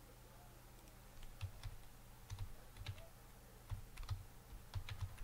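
Typing on a computer keyboard: faint, irregular key clicks starting about a second in, some in quick pairs.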